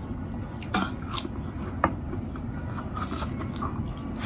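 A man eating rice and dal with his hand, with close mouth and chewing sounds and a few sharp clicks or smacks in the first two seconds.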